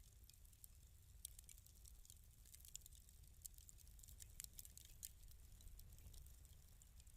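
Fireplace wood fire crackling faintly: irregular small pops and ticks over a low steady rumble.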